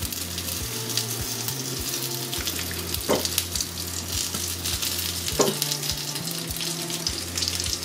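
Chicken nuggets sizzling in hot oil in a frying pan as more cooking oil is poured in from a plastic bottle.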